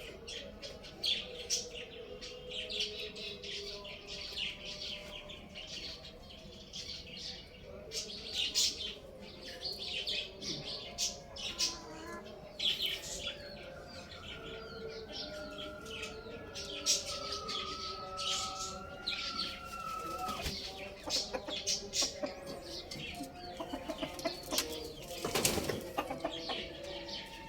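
Many birds chirping at once in quick, overlapping calls, with a loud flutter of wings near the end.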